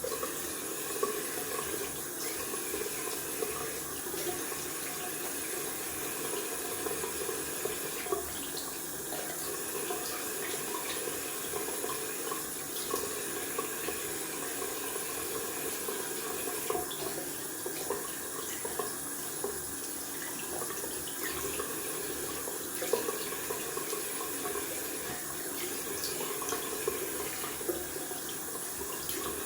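Cold water running steadily from a tap into a sink, with small irregular splashes as lather is rinsed off the face.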